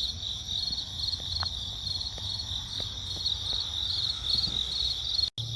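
Crickets chirping in a steady, pulsing chorus, with a brief total dropout near the end.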